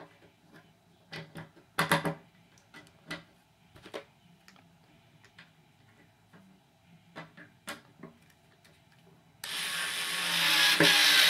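Scattered clicks and knocks of a door closer and screws being handled and set in place. Then, well past halfway, a cordless drill starts up and runs steadily, the loudest sound.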